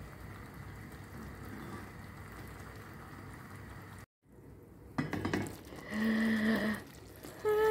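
Thick barbecue sauce bubbling and sizzling around chicken pieces in a stainless steel pan on a gas burner, with clinks of the pan. It is a quiet steady simmer at first, then after a brief cut-out the bubbling comes louder and more vigorous. The sauce is reducing and nearly done.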